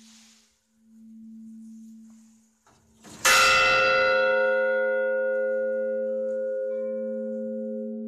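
Church bell struck once, loud and sudden about three seconds in, then ringing on and slowly fading, over the lingering low hum of an earlier strike that swells and fades about every two seconds. A fainter, higher bell note comes in near the end.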